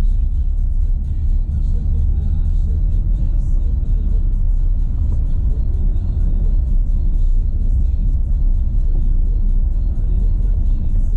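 Renault Sandero Stepway 2 driving on a dirt road: a steady low rumble of tyres and suspension, with music playing over it.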